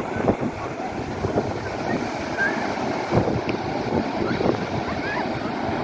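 Ocean surf breaking on a sandy beach, a steady wash of noise, with wind buffeting the microphone in irregular gusts.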